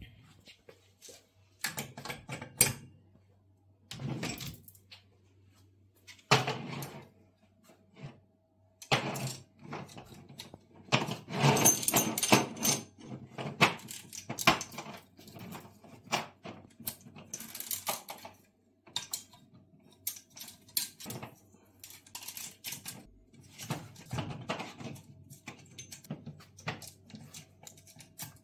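A steel saw chain and chainsaw guide bar handled by hand as the chain is threaded onto the bar: irregular metallic clicks and clinks, with a denser stretch of rattling about eleven to thirteen seconds in.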